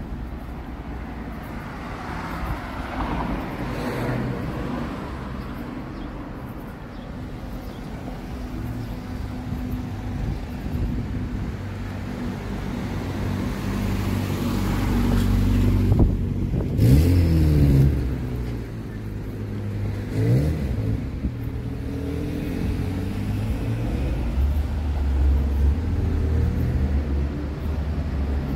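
Road traffic with car engines running close by. About halfway through, an engine's pitch sweeps up and down twice, and this is the loudest part.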